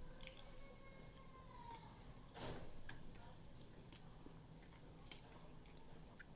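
Faint, scattered mouth clicks and wet smacks of someone chewing food, with a short swish about two and a half seconds in. A faint steady tone hangs in the background through the first two seconds.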